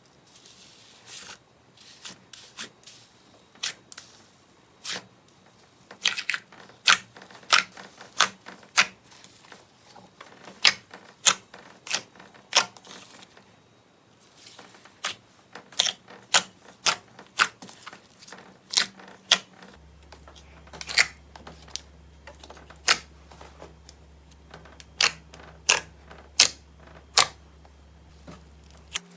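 Slime being worked by hand, giving off an irregular run of sharp clicking pops, several a second, with a short lull about halfway through.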